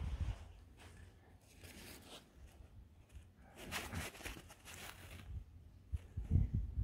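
Faint rustling and crinkling of an old, damp paper worksheet booklet being picked up and handled, with a couple of low thumps near the end.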